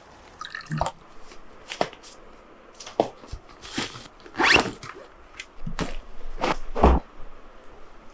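Scattered short clicks and rustles, roughly one a second, over a faint steady hiss.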